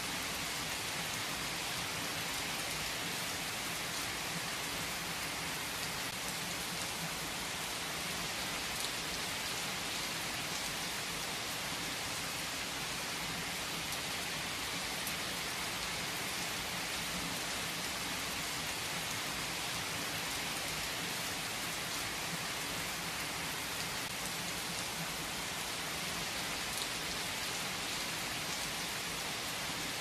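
A steady, even hiss like falling rain, unchanging throughout, with a few faint ticks.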